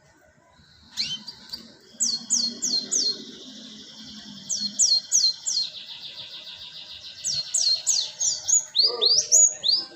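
Cinereous tit (gelatik batu) calling, a lure call: bursts of three to five quick, high notes, each sliding downward, with a steady high tone beneath for the first several seconds and a few rising notes near the end.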